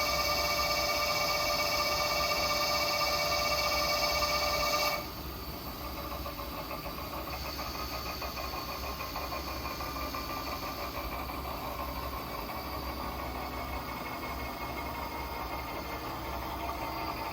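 Metal lathe running. For about the first five seconds there is a steady high whine made of several tones; it cuts off suddenly and leaves a quieter, even machine hum.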